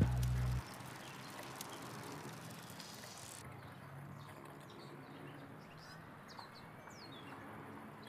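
Outdoor ambience of a bicycle ride: a steady rush of wind and road noise, opening with a brief loud low rumble, with birds chirping in the second half.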